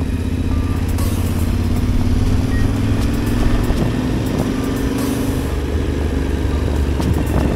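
Adventure motorcycle engine running under load, its pitch rising slowly for about five seconds as the bike accelerates, then settling.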